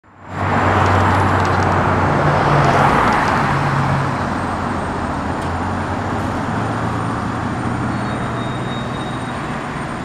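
Fire engine's diesel engine running as the truck pulls slowly out of the station: a steady low hum under a broad rushing noise that eases after about four seconds.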